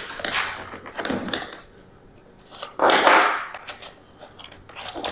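Plastic handling clicks and rubbing as hands work the bar-and-chain-oil filler cap on a Ryobi chainsaw, with a louder scraping rub about three seconds in.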